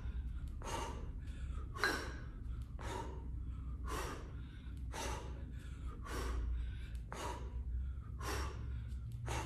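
A woman breathing hard through a vigorous exercise, with a short sharp exhalation about once a second, over a low steady hum.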